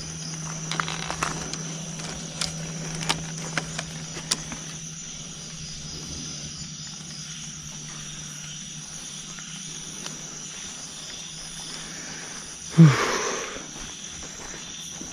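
Steady high chirring of night insects such as crickets, with scattered sharp clicks over the first few seconds. About thirteen seconds in comes one sudden louder sound whose low pitch drops quickly, then fades.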